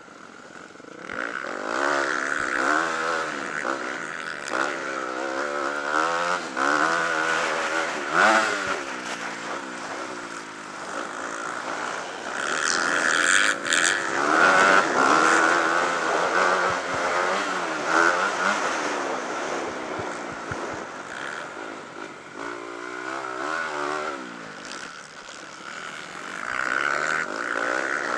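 Motocross bike engine heard up close from a camera on the bike, revving up and falling back again and again as the rider works through the gears around a dirt track.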